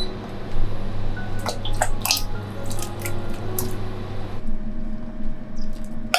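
Chunks of sweet potato dropping into a saucepan of hot water, a string of separate plops and small splashes, over light background music.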